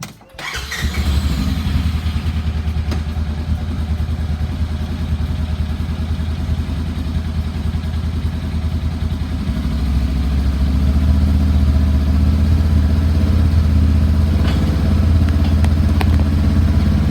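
Polaris RZR 900S side-by-side's parallel-twin engine running steadily. It comes in suddenly about half a second in and gets a little louder about ten seconds in.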